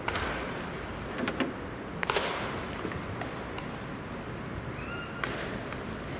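Ballpark ambience during batting practice: a steady background noise with several sharp knocks, the loudest about two seconds in.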